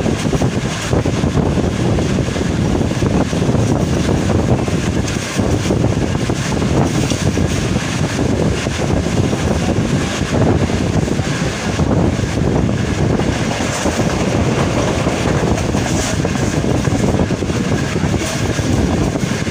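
Passenger train running along the track: a steady, loud rumble and rattle of wheels and carriages on the rails.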